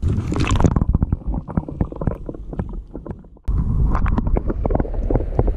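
Lake water sloshing and splashing as a hand lowers a bass into the water and lets it go. About three and a half seconds in, the sound turns to a low, muffled underwater rumble with crackles as the microphone goes below the surface.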